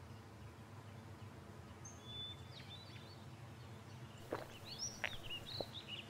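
Quiet outdoor ambience with a low steady hum and small birds chirping several times, mostly in the second half, with a few faint clicks near the end.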